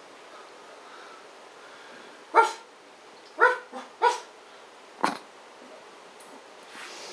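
Three short, sharp barks about a second apart, then a fourth that is briefer and more clipped.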